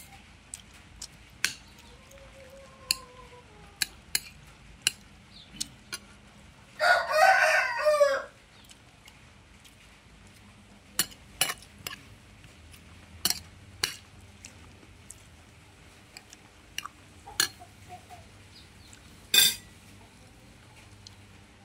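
A rooster crows once, about seven seconds in, one loud crow lasting over a second. Short sharp clicks and knocks are scattered through the rest.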